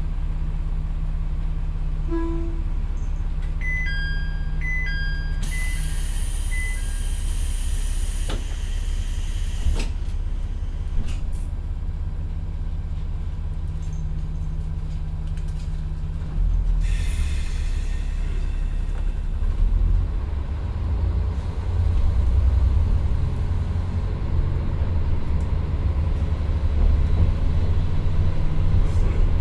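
Inside the Akechi 10 railcar, its Nissan Diesel PE6HT03 engine idles at the station. An electronic chime of short beeps sounds, then a hiss of compressed air and a couple of thumps. About halfway through there is another burst of air as the railcar starts off, and the diesel revs up and pulls under load.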